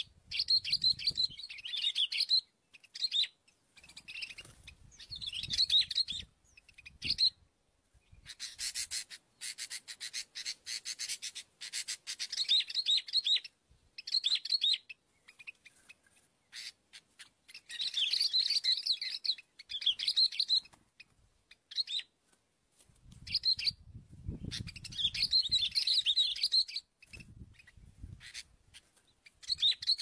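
Sooty-headed bulbuls chirping in bursts of quick, bright calls with short pauses between.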